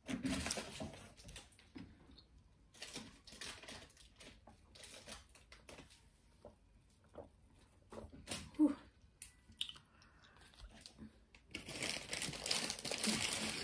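Crinkling and rustling in short bursts, with a longer, louder stretch of rustling near the end, and faint mouth and handling sounds in between.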